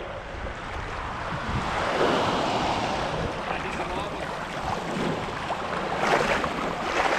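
Water splashing and sloshing close to the microphone as a person swims ashore through the shallows. Small waves wash over the rock, most loudly around six seconds in.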